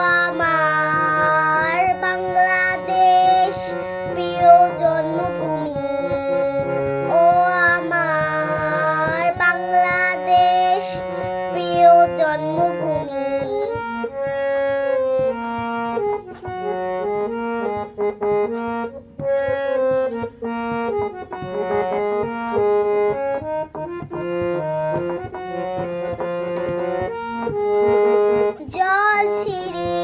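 A young girl singing solo over instrumental backing music. Partway through, her voice drops out for an instrumental interlude of held, stepping notes, and her singing returns near the end.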